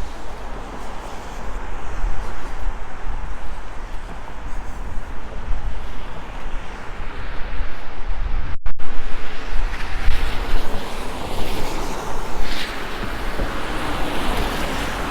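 Wind buffeting the microphone over traffic on a wet, slushy street. The hiss of passing vehicles grows louder in the second half. The sound cuts out for an instant a little past halfway.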